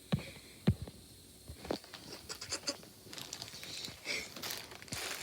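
Handling noise: a string of irregular taps, knocks and scratchy rustles from objects being moved close to the microphone, busier in the second half.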